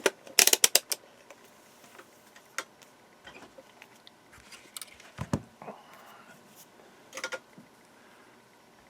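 A quick run of sharp clicks, a multimeter's rotary selector being turned to continuity, followed by scattered light ticks and taps, a dull knock about five seconds in, and another short cluster of clicks near the end.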